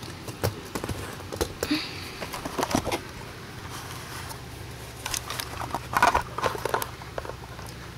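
Handling noise: scattered light clicks, taps and rustles as a small die-cast model backhoe loader is moved on a tabletop and the camera is shifted about, busiest about five to six seconds in.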